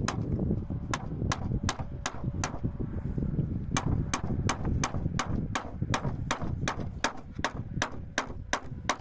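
Sharp knocks repeating evenly about three times a second, with a pause of about a second near the middle, over a steady low rumble.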